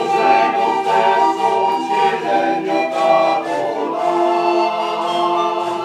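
Firlinfeu, the Lombard pan flutes, played together as an ensemble: several held tones sound at once in chords that shift every second or so.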